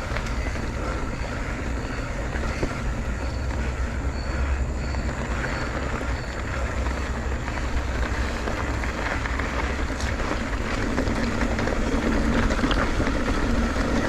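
Wind rushing over the microphone and road noise of a moving bicycle, steady, growing a little louder near the end.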